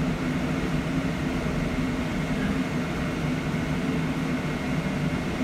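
Upper-deck cabin noise of an ADL/BYD battery-electric double-decker bus on the move: a steady low hum with road rumble underneath, and no diesel engine.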